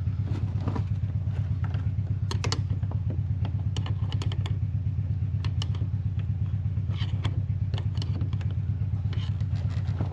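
A motor or engine runs steadily with a low drone and a fast, even pulse. Scattered light clicks and clinks of hand work on the fuel-line fittings sound over it.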